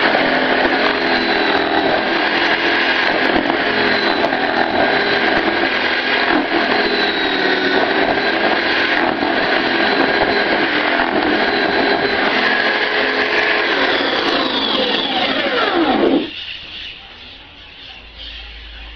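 Homemade horizontal drill, with a bit in a 3/8-inch chuck turning on a bicycle wheel hub, running steadily while it bores and slots a wooden board. Near the end it is switched off and winds down over about two seconds, its pitch falling until it stops.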